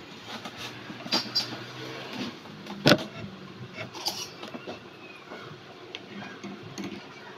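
Scattered light metallic clicks and taps, the loudest about three seconds in, over a faint steady hiss. Near the end a small metal spoon taps and scrapes inside a miniature stainless steel pot as boiled quail eggs are scooped out.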